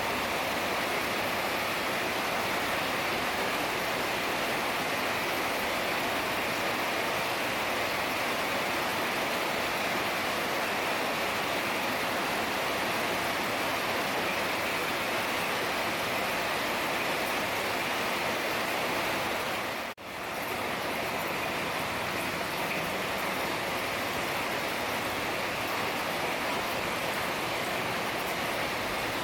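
Heavy rain falling in a steady, dense hiss. About two-thirds of the way through it drops out for an instant, as at a cut in the recording, and fades back in.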